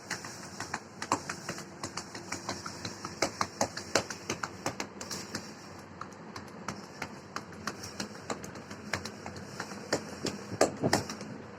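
Manual chest percussion in chest physiotherapy: the therapist's hands clap repeatedly on the patient's torso, several claps a second at uneven spacing, with the strongest near the end. The percussion is meant to loosen thick, congested phlegm so that it can be coughed up.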